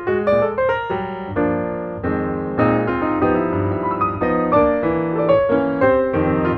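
Background piano music: a melody of single notes over held chords, with fresh notes struck every fraction of a second.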